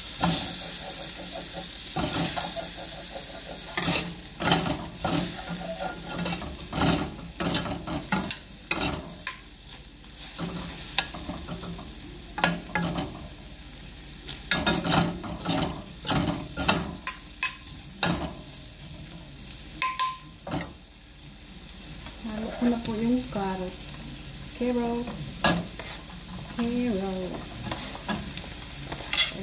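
Metal spatula and spoon scraping and clinking against a stainless steel wok as pork stir-fries in hot oil, with a steady sizzle under irregular sharp clacks of the utensils.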